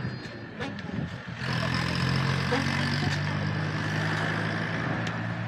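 An engine or motor running with a steady low hum. It drops briefly about a second in, then carries on louder from about a second and a half in.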